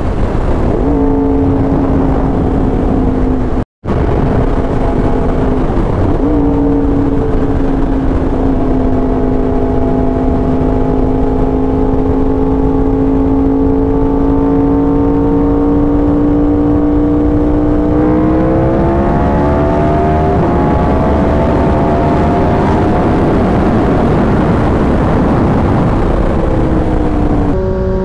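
Motorcycle engine, the 2019 Yamaha R1's crossplane inline-four through an SC Project exhaust, holding a steady cruise with wind rush, heard from the bike. The engine note climbs slowly, rises more steeply about two-thirds of the way through, and steps up again near the end; the sound cuts out briefly near the start.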